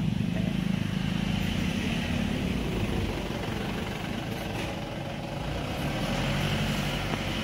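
Road traffic going by: a motorcycle engine runs close by and fades away over the first couple of seconds, then a pickup truck's engine rises as it drives past near the end.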